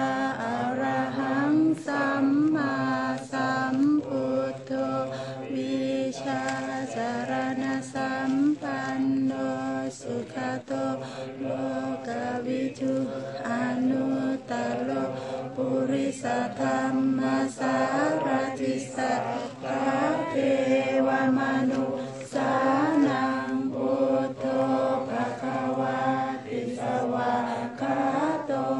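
A group of Buddhist monks and lay devotees chanting Pali verses in unison, a steady recitation held mostly on one pitch with brief rises at the ends of phrases.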